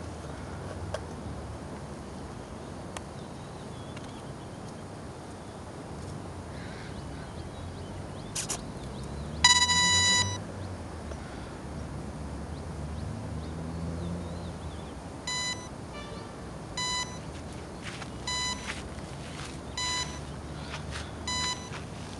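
A home-built electric RC plane's speed controllers beeping through its motors as it is powered up and initialised. There is one long, loud high beep about ten seconds in, then short beeps repeating about every one and a half seconds.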